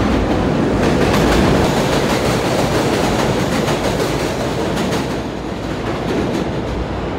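Loud, steady rumbling and rattling noise, which cuts off abruptly at the end.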